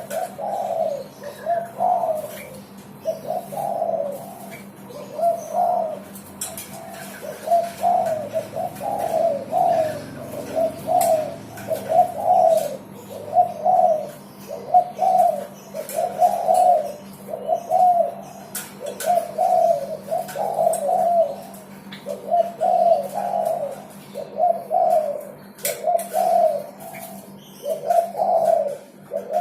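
Derkuku dove cooing on and on, short low coos repeating about once a second, over a faint steady hum.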